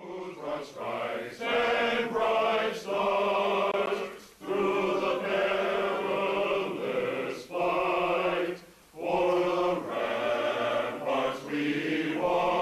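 Men's choir singing a cappella in sustained phrases, with three short breaks between phrases.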